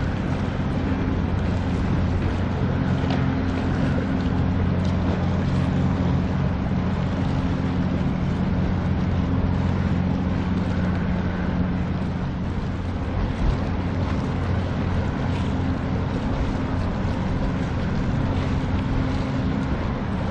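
Car ferry's engines running with a steady low drone as the ship passes close, several low hum tones held without change. Wind rushing on the microphone and water noise sit over the drone.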